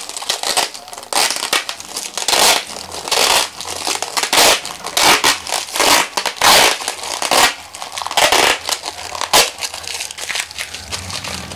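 Plastic shipping wrap being pulled and torn off a parcel by hand: crinkling and ripping in quick, irregular bursts.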